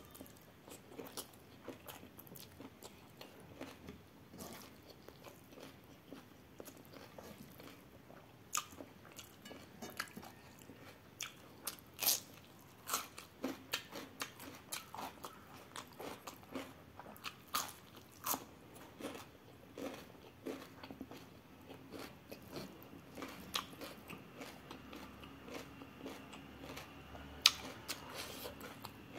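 Close-miked eating: chewing of rice and vegetables eaten by hand, with a run of sharp crunches through the middle as a slice of raw radish is bitten and chewed.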